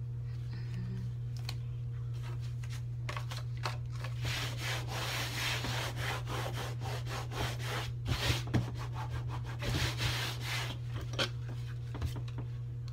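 Hands and paper rubbing and sliding across a tabletop, with light clicks and taps, over a steady low hum.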